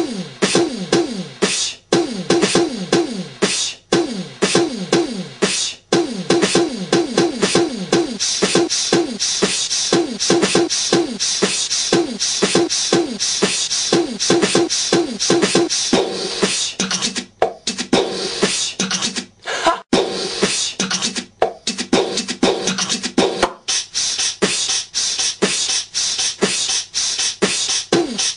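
Beatboxing: fast vocal percussion of mouth clicks and kick-like thumps laid over short voiced sounds that drop quickly in pitch, repeating about four times a second in a steady beat. It breaks off abruptly for an instant several times, like hard edits between clips.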